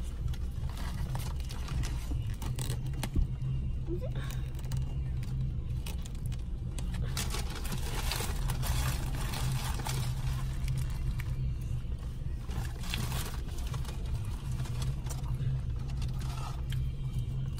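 Steady low hum of a car running, heard from inside the cabin, with paper-and-foil burger wrapper rustling and chewing over it. One sharp knock about three seconds in.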